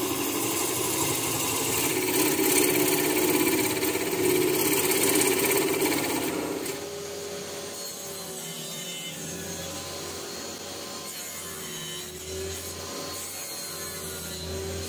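A wood lathe spinning a wooden spindle while a turning gouge cuts into it, a loud steady cutting and scraping with the motor's hum under it. About seven seconds in the cutting stops and a quieter steady hum carries on.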